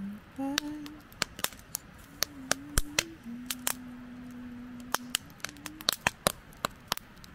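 Wood fire crackling in a small metal fire pit, with sharp, irregular pops and snaps a few times a second. A faint low steady tone comes and goes underneath.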